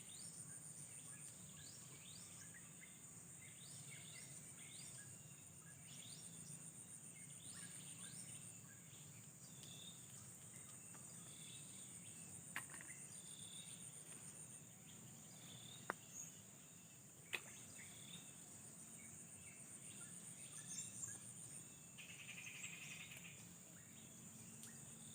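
Faint outdoor insect chorus: a steady high-pitched chirring like crickets. Scattered short chirps run through the first half, and three sharp clicks come about halfway through.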